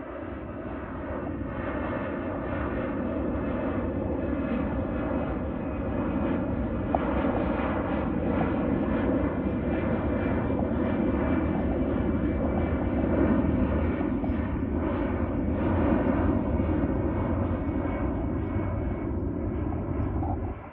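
Airbus A320 jet engines at departure power, a steady jet noise that slowly builds in loudness and cuts off suddenly at the end.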